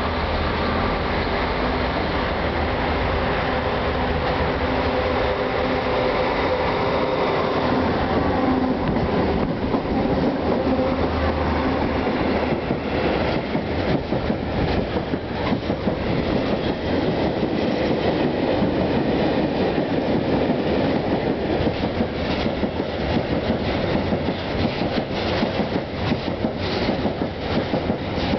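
Freight train passing at speed: the locomotive drones past in roughly the first ten seconds, then empty iron ore hopper wagons roll by with a rapid, continuous booming and knocking from their axles and wheels.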